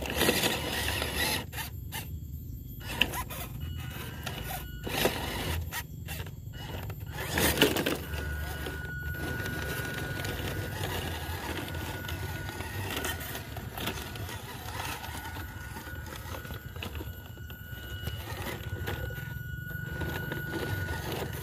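Small RC rock crawler with a stock gearbox and 180 motor driving over rough ground: its tyres and chassis scrape and knock on rock, with a sharp knock about seven and a half seconds in. A thin steady whine runs from about eight seconds in.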